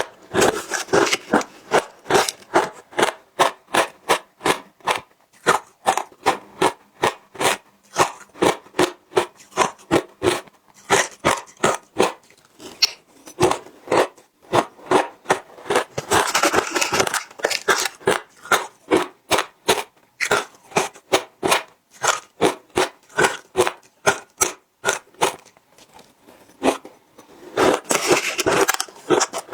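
Close-miked chewing of frozen matcha ice: sharp crunches at about two to three a second, with a few denser stretches of crunching where fresh bites are taken.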